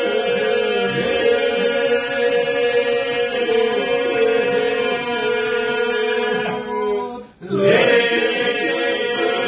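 A group of men singing an Albanian Lab polyphonic song: several voices in parts over a steadily held drone. The singing breaks off for a moment about seven seconds in, then all the voices come back in together.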